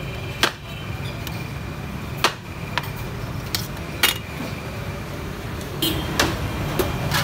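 Metal utensils clinking and knocking against pots and plates, about eight sharp, irregular strikes over a steady low hum.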